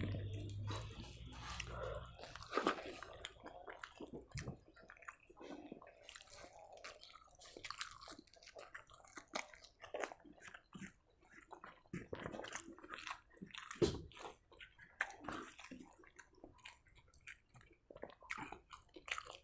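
A person chewing a mouthful of rice and curry, close to the microphone: irregular wet chewing and mouth clicks, with a few louder bites.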